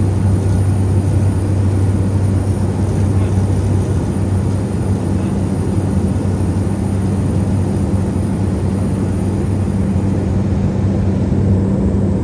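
Steady engine-and-propeller drone of a de Havilland DHC-3 Otter floatplane in flight, heard inside the cabin: a deep hum, with a second, higher hum growing stronger about halfway through.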